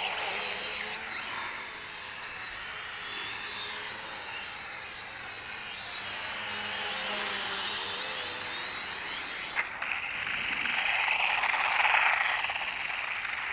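Feng Niu FN668 flying-car quadcopter's small electric motors whining, the pitch drifting up and down as they speed up and slow down. The whine gets louder about eleven seconds in, and there is a single sharp click a little before that.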